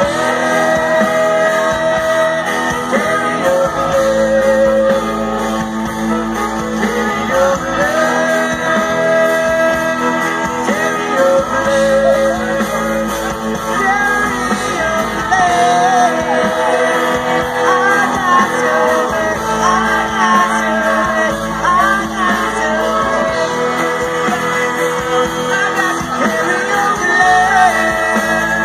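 A live rock band playing, with guitars, drums and keyboard and a voice singing over them, heard from within the audience.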